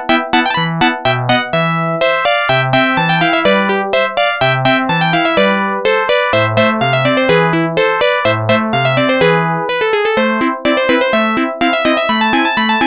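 Samsung SGH-T100 polyphonic ringtone played as a MIDI file through a software synthesizer: a quick electronic melody of short, electric-piano-like notes over a bass line.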